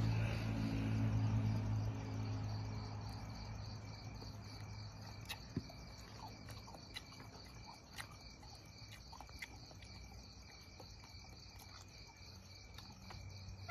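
Crickets chirping in a steady, evenly pulsing night chorus, with a low hum fading away over the first few seconds and a few faint clicks of a spoon against a plate.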